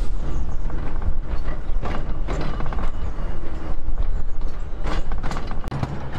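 Narrow-gauge railway passenger carriage rolling along 750 mm track: a steady low rumble of the running gear with irregular clicks and creaks from the wheels and carriage body.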